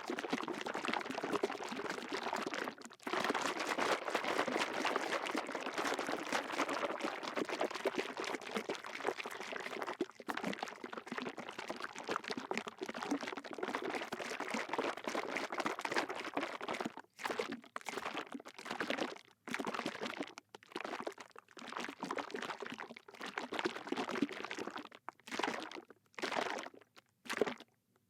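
Liquid shaken in a bottle: rapid, continuous sloshing with a brief pause about three seconds in. In the second half the shaking slows into separate sloshes with short gaps between them.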